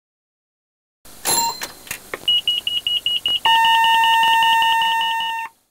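Electronic beeping: a few clicks, then a rapid, high-pitched pulsing beep, joined about halfway through by a steady lower tone, before both cut off suddenly near the end.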